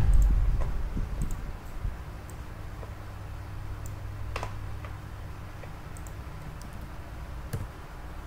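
A few scattered light clicks, a second or two apart, over a low steady hum.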